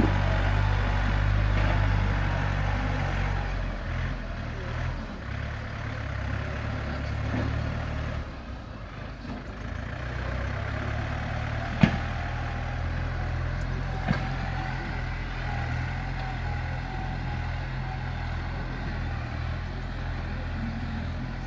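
Tractor's diesel engine running steadily as the tractor pushes and spreads crushed gravel with its front blade. A sharp knock comes about twelve seconds in, and a lighter one about two seconds later.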